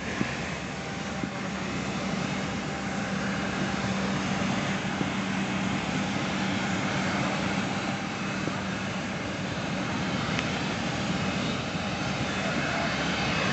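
Aircraft engines running steadily at an airport apron, an even noise with a constant low hum underneath.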